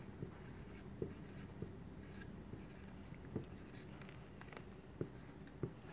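Marker pen writing letters on a white surface: faint short scratchy strokes with light taps of the tip.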